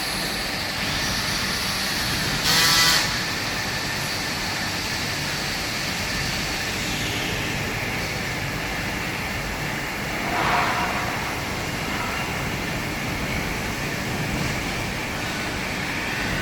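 Steady mechanical noise of running machinery, with a short loud hiss about two and a half seconds in and a smaller swell of sound around ten seconds in.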